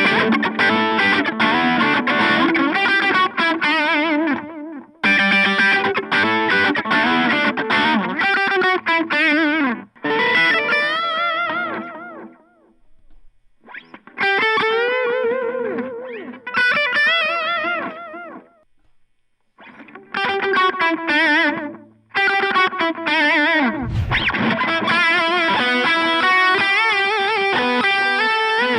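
Solar A1.6D electric guitar played through a Boss Katana Mini 7-watt practice amp: lead phrases with bends and vibrato, separated by short pauses. A brief low thump comes about 24 seconds in.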